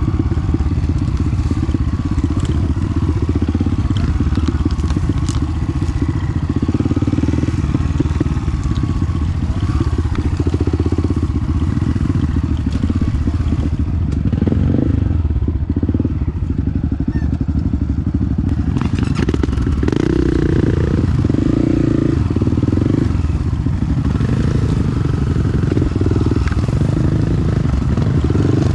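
Dirt bike engine running under way, its note shifting up and down with the throttle, with a few brief knocks and rattles over rough ground.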